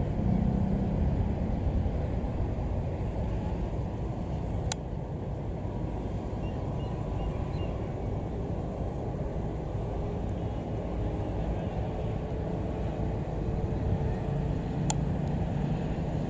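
GE GEU40 diesel-electric locomotive with a GEVO-12 diesel engine running as it approaches slowly: a steady low rumble. Two sharp clicks about ten seconds apart.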